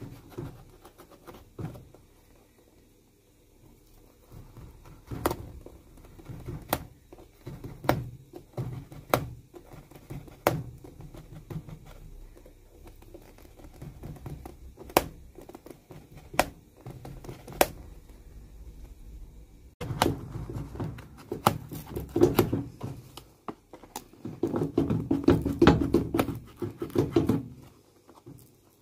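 Old, dry, cracked leather welt being cut and pried away from a shoe upper with a metal hand tool: scattered sharp clicks and ticks, with scraping and tearing rasps that get busier near the end.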